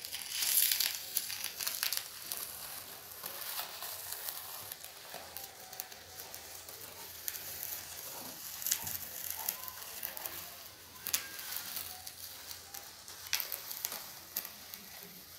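Wooden profile template scraping through wet cement slurry on the ribbed sides of a cement plant pot: a steady wet rasping hiss with scattered sharp clicks, loudest in the first second. It is the final smoothing pass over a coat of neat cement and water.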